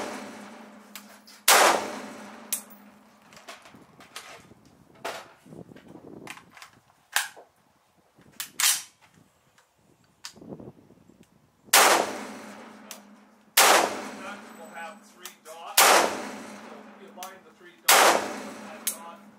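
Swiss Arms PE 90 semi-automatic rifle (the civilian SIG 550, in 5.56x45 mm NATO) firing single shots, each ringing out briefly. One shot comes about a second and a half in. A lull of about ten seconds follows with only quieter knocks, then four shots about two seconds apart.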